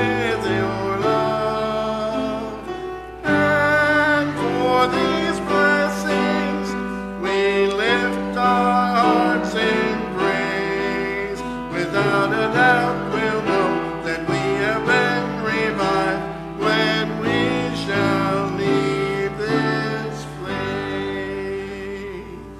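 Congregation singing a hymn with instrumental accompaniment, the last chord held and fading near the end.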